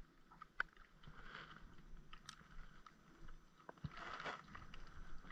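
A few light clicks and knocks from a spinning rod and reel being handled in a small boat, over a faint soft hiss that comes and goes.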